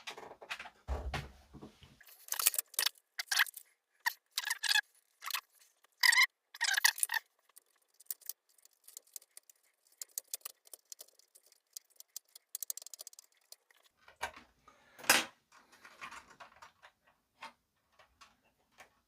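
Irregular clicks, rattles and scratches of hands working on an opened amplifier as a pin-plug connector is unplugged, with a dull thud about a second in and one loud sharp click near the end.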